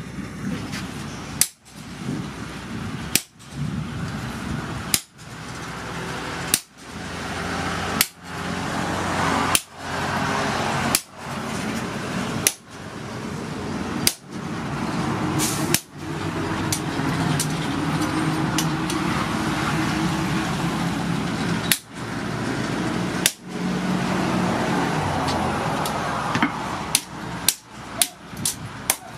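Hand hammer striking a red-hot rebar fishing-spear head held in tongs on a steel anvil. The blows come about every second and a half, then speed up into a quick run of strikes near the end.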